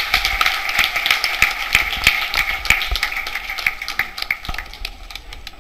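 Audience applauding, a dense patter of hand claps that thins out and fades toward the end.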